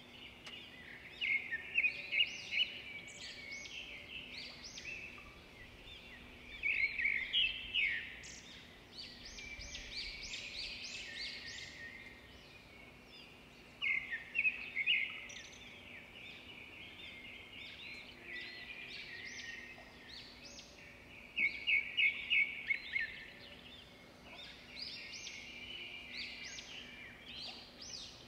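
Small birds chirping and twittering in quick high notes, with several louder bursts of rapid trills, over a faint steady hum.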